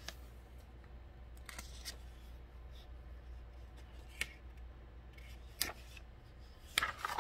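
Hands handling a large picture book held up to the camera: a few short soft rustles and taps from the pages and cover, over a low steady hum of room tone.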